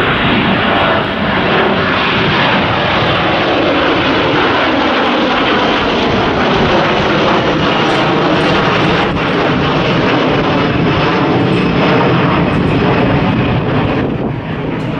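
Jet airliner's engines at climb power just after takeoff: a loud, steady rumble with slow sweeping tones through it, easing off near the end as the plane climbs away.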